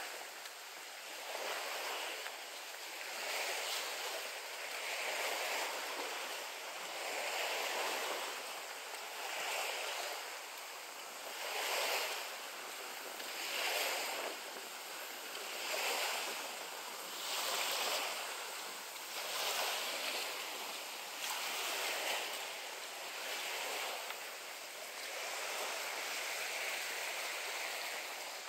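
Seaside outdoor ambience: a rushing noise that swells and fades about every two seconds, evening out near the end.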